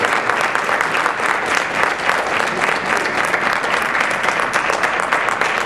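Audience applauding: many hands clapping in a dense, steady ovation.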